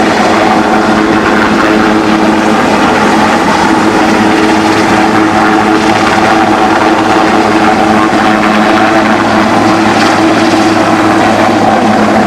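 An aircraft flying low overhead, its engine and propeller or rotor running with a loud, steady hum of several held tones.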